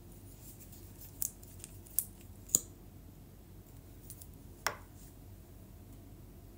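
Small plastic clicks from handling and uncapping a lash-primer tube: three short sharp clicks, then a slightly longer one near five seconds as the wand comes out.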